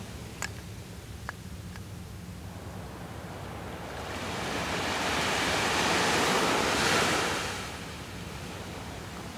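A sea wave washing up on the beach: a rushing surge that builds from about four seconds in, peaks, and fades away by near the end. A couple of faint clicks sound near the start.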